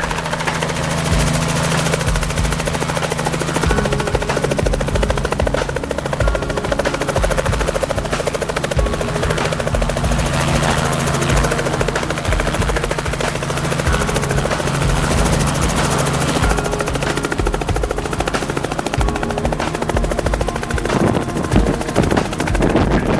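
Robinson R44 helicopter running steadily in a low hover: its six-cylinder Lycoming piston engine hums under the rapid, even beat of the two-blade main rotor. The steady hum breaks up about 21 seconds in.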